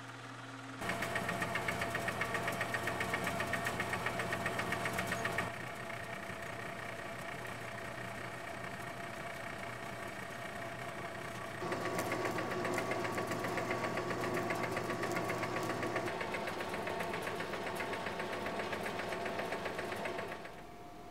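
Metal lathe running under power with a steady hum and a fast, even rattle. It starts about a second in, is louder for the first few seconds, then again from about twelve seconds in, and stops shortly before the end.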